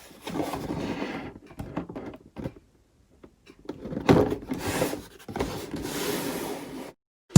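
Handling sounds of sneakers and their cardboard shoebox: scattered rustling and light knocks, with a sharper knock about four seconds in.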